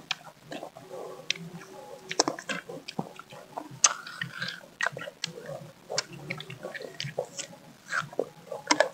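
Several people biting and chewing firm slices of green mango dipped in chili sauce: irregular sharp crunches and clicks with mouth sounds.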